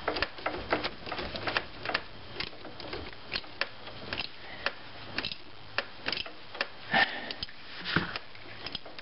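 Irregular metallic clicks and ticks, some in short clusters, from a wrench working the 10 mm bolt of the brake hose bracket on a rusty front strut.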